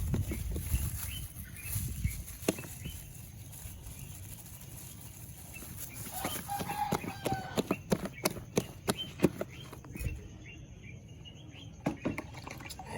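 Irregular wet slaps and knocks of bambara bean flour batter being beaten in a bowl to lighten it for tubani.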